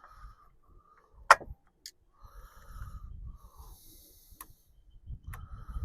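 Small clicks and knocks from hand tools and chainsaw parts being handled during carburettor removal, with one sharp click about a second in as the loudest sound, then a few lighter clicks and faint rustling.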